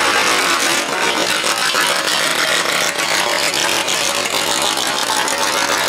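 Loud V8 engine of a 1964 Ford A/FX gasser with velocity stacks, running through open side headers with a rapid, rattly exhaust as the car drives slowly past.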